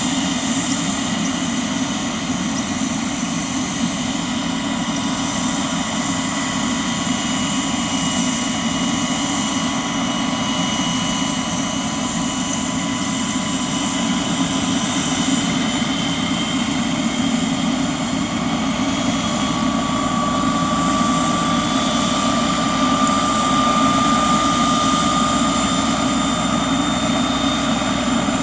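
Bell 206B-3 JetRanger III helicopter running steadily: its Allison 250 turboshaft whines in several high steady tones over the rotor's low throb. In the second half one tone rises slowly in pitch.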